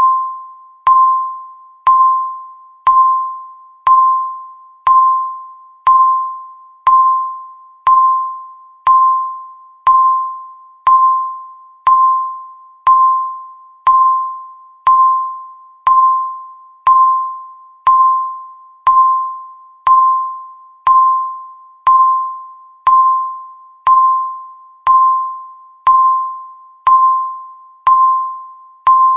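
Countdown timer's tick sound: a sharp electronic click with a short ringing tone, repeating exactly once a second and fading quickly after each tick.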